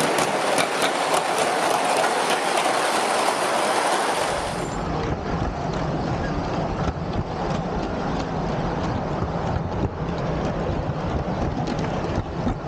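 G scale model trains running on the layout: a clicking rattle of wheels over the track as a model locomotive passes close, then from about five seconds in a steadier, deeper rumble and rattle heard riding on a wagon behind a model diesel engine.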